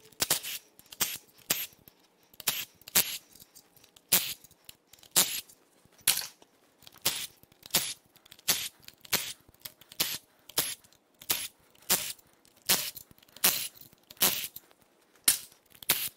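Milwaukee M12 Fuel cordless power tool zipping out a row of oil pan bolts, heard as short, sharp bursts about twice a second.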